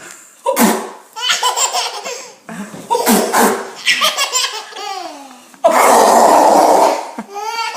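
A baby laughing in repeated peals, set off by a woman's sudden, loud sneezes; the loudest and longest sneeze comes near the end.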